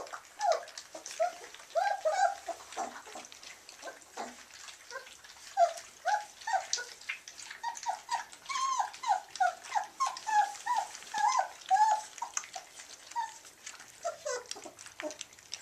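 A puppy whining and whimpering while she eats, in a long string of short cries several a second. Under the cries are the clicks and crunches of dry kibble being eaten from metal bowls.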